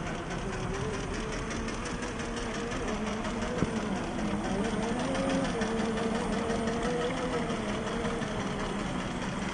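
Electric motor and gear drivetrain of an RC rock crawler (45T 540 brushed motor) whining as it crawls, its pitch rising a little around the middle and easing back with the throttle. One sharp click about a third of the way in.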